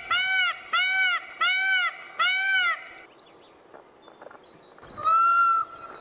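Indian peafowl calling: four loud calls in quick succession, about two a second, each rising and falling in pitch. After a short pause, one longer, flatter call comes near the end.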